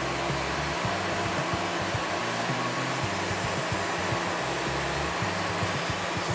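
Wood-Mizer LT-40 portable band sawmill running steadily, a constant whirring noise as it saws a log.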